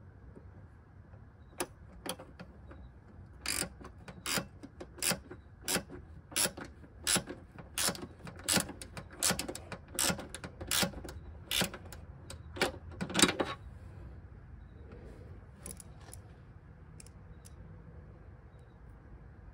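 Ratcheting wrench clicking in short, even strokes, about one click every three-quarters of a second, as a hood-hinge bolt is run in; the clicking stops about 13 seconds in.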